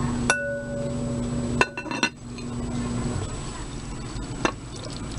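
Glass lid of Visions glass cookware clinking against the rim of the pot as it is set back on. One clear clink rings on for a few seconds, a quick cluster of clinks follows around the two-second mark, and there is a lighter knock near the end.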